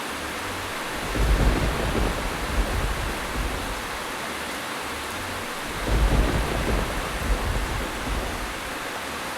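Steady heavy rain with low thunder rumbles that swell twice, about a second in and again about six seconds in.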